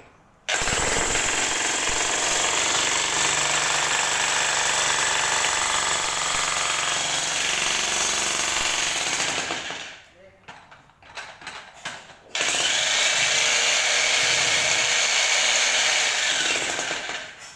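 Jackhammer hammering in two long runs, each starting and stopping abruptly, with a short pause of scattered clatter between them.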